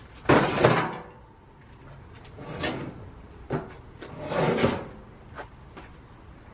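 Three short scraping, sliding noises with a few sharp clicks and knocks between them, like hard objects being handled or shifted.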